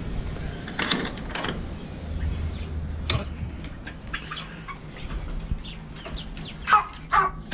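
Young chickens clucking and calling in a coop, in short scattered calls, with two louder calls close together near the end.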